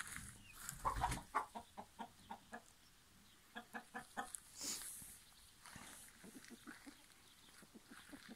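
Chickens clucking in short, quick runs of notes, once about a second in and again about three and a half seconds in.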